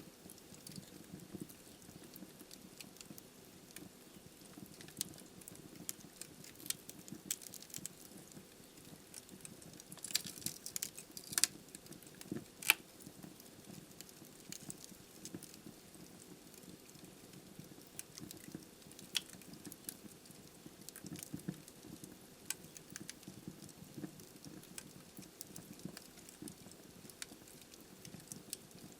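Wood fire burning in a fireplace: logs crackling with irregular small pops over a low, steady rumble of flame. There is a quick flurry of sharper pops about ten to eleven seconds in, and the loudest single pop comes shortly after.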